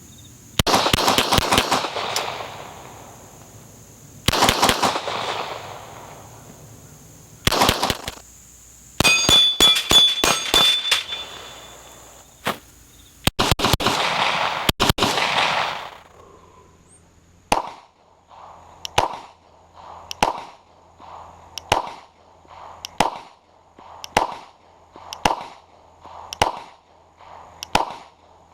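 9mm Glock 17 pistol firing: several fast strings of shots, each followed by echo, then a steady slower pace of single shots about one a second.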